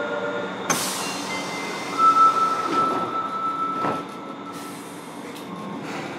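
Interior running noise of a Fukuoka City Subway 1000N series car. A steady whine stops about half a second in and is followed by a sharp click. A single high tone then sounds from about two seconds in to past four seconds, with a couple of knocks along the way, and the running noise gets quieter near the end.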